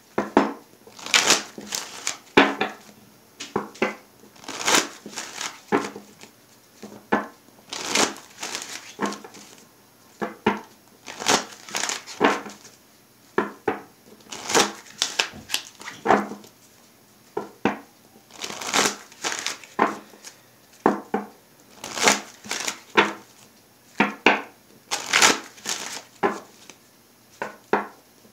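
Tarot cards being shuffled by hand, in repeated short rustling bursts about one or two a second with brief pauses between them.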